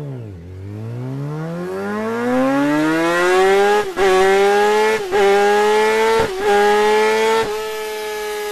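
Superbike engine: a quick throttle blip, then a long climb in revs as it accelerates hard, then four quick upshifts about a second apart, each cutting the sound for an instant.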